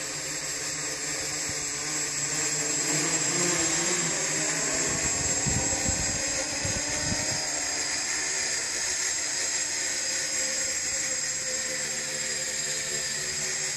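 Quadcopter's electric motors and propellers whining steadily as it holds a hover. The sound swells louder in the middle, with some low buffeting there, then settles back.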